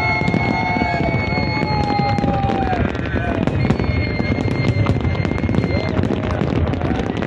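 Dense fireworks barrage: a continuous rapid crackling and banging of many shells bursting together. Long high whistling tones are heard over it, one through the first half and another in the middle.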